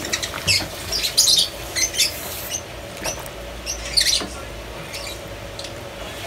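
A ladle stirring a pot of soup thick with cabbage and carrots, giving irregular light scrapes and clinks against the metal pot, mostly in the first four seconds or so.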